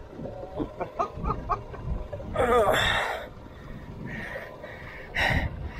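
Strained, heavy breathing of an angler fighting a big shark on rod and reel: a loud gasping breath with a wavering groan about halfway through, and another sharp breath near the end.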